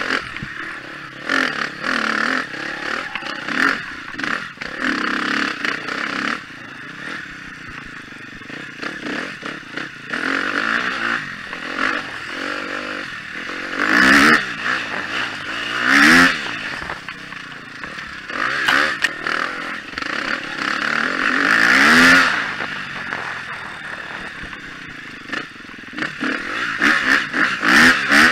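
2013 KTM 250 XC-F's single-cylinder four-stroke engine revving up and falling back over and over under the rider's throttle, with three loud sharp rises in the second half. Short knocks and rattles come from the bike over rough ground.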